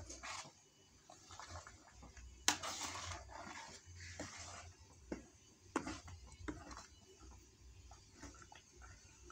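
Metal spoon stirring thick ground chili paste in a metal pan: irregular wet scraping, with occasional sharp knocks of the spoon against the pan, the loudest about 2.5 seconds in.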